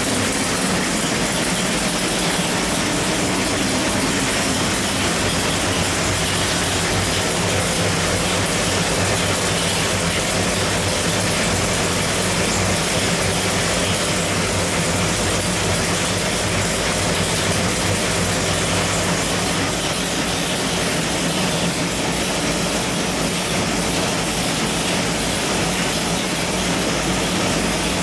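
Big-block Chevrolet 572 cubic-inch V8 idling steadily on an engine dyno, holding an even speed with no revving.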